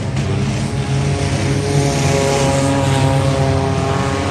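Race car engine running steadily, its pitch rising a little near the end.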